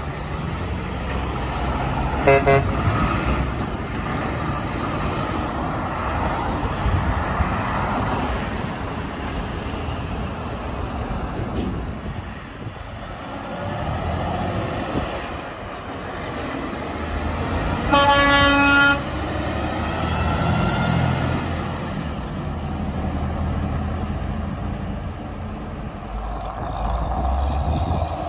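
Semi trucks' engines running past with two air-horn blasts. A short blast comes about two seconds in from a Peterbilt 389's pair of Hadley H00878C air horns. A longer, louder blast of about a second comes later from a Freightliner semi's Hadley H00249F air horn.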